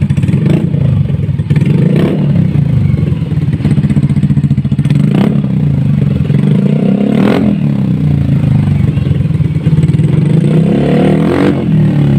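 Yamaha Mio i 125S scooter's single-cylinder engine running through an Akrapovič Hexatip muffler with its silencer (dB killer) removed, open pipe, idling and revved in about five quick throttle blips, the biggest about seven seconds in.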